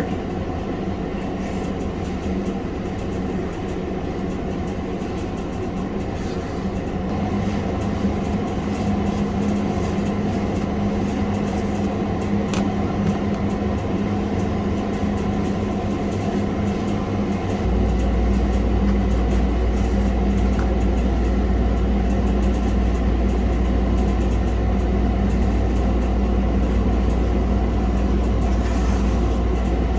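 Steady low machine hum with a constant drone, growing louder and deeper about two-thirds of the way through.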